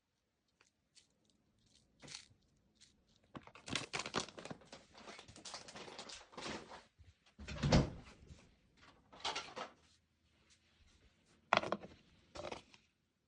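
Kitchen food-prep handling noises: several spells of crinkly rustling and a single low thump a little past the middle.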